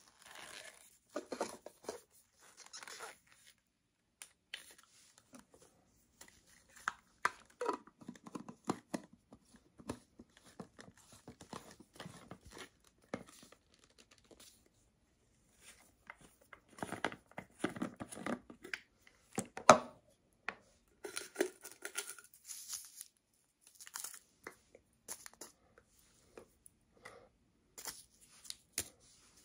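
A portable blender bottle being handled: its plastic lid and cup rub, scrape and click in the hands in scattered, irregular bursts, with one sharp click about two-thirds of the way through.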